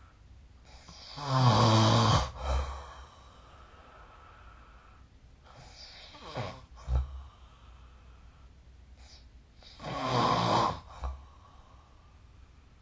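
A sleeping person snoring: two loud, low-pitched snores about eight seconds apart, with a fainter breath between them.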